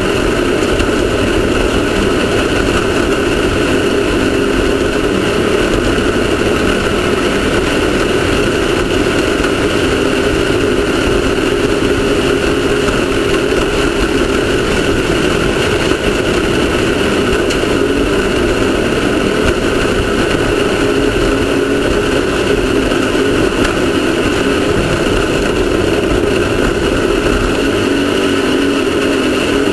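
Off-road race car engine running at steady revs, a constant drone with rough low rumble, with no change in pitch throughout.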